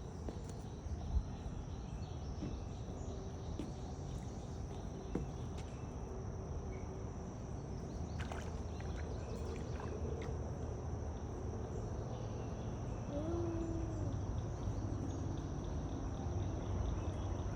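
Outdoor ambience: a steady high-pitched insect drone over a low even rumble, with a faint brief call about two-thirds of the way through.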